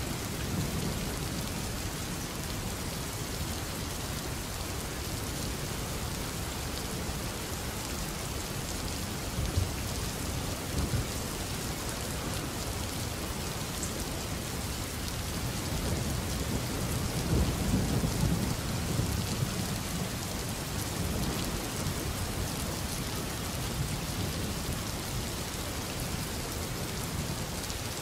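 Steady rain with low rumbles of thunder, the loudest rumble a little past the middle.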